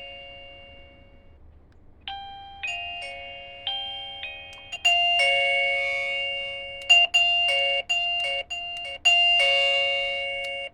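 Wireless doorbell chime unit playing electronic bell-like ringtones, each note striking and then fading. A short tune of a few separate notes gives way about five seconds in to a different, busier melody.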